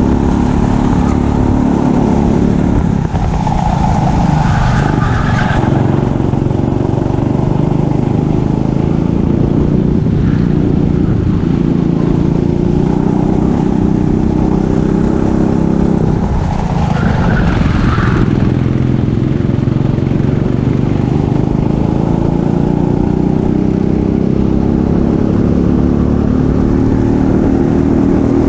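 Racing kart engine running hard on a lap, heard from on board; the revs drop twice, about three seconds in and again past the middle, and climb back each time.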